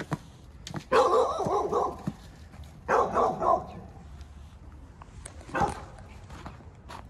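Dog barking in two quick runs of several barks each, about a second in and about three seconds in, with one more short bark near the end.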